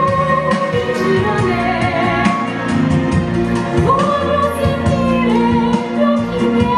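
A young woman singing a held, gliding melody into a handheld microphone, over amplified instrumental accompaniment with a steady beat and bass.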